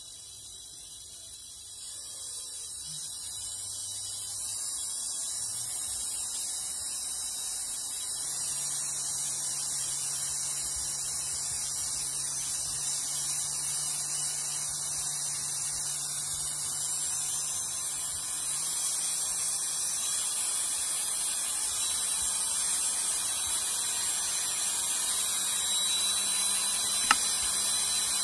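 Small brushed DC motor running at low speed off a bench power supply at about 6.4 V and 0.7 A: a steady low hum with a hiss of brush noise, getting louder over the first several seconds and creeping slowly up in pitch later on. A single sharp tick near the end.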